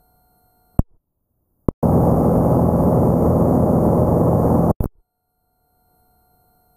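Aircraft headset radio audio: a couple of sharp clicks, then a loud burst of rushing noise with a low engine drone for about three seconds that cuts off abruptly with another click, as when a microphone is keyed open with no one speaking. Faint steady tones hum underneath before and after the burst.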